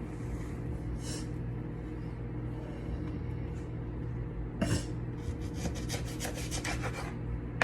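Kitchen handling noises over a steady low hum: brief rubbing scrapes, then a run of light clicks and knocks near the end.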